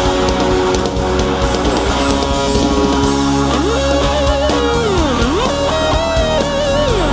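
Live rock band playing an instrumental passage: a lead electric guitar plays a line with vibrato and wide swooping pitch bends that dive down and come back up, over strummed acoustic guitar and drums.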